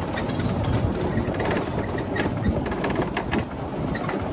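Electric golf cart riding over stone paving: a steady rumble from the tyres, with light rattling clicks from the cart.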